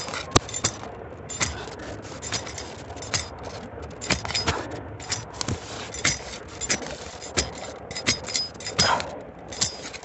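Small metal hand shovel digging into damp forest soil: a series of sharp, irregular stabs and scrapes, about one or two a second.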